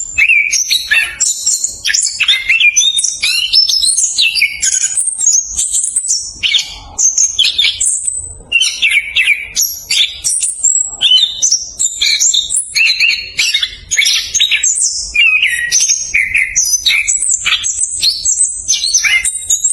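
Anis kembang (chestnut-capped thrush) singing a fast, tightly packed rolling song. The quick varied high whistled notes and trills follow each other almost without pause.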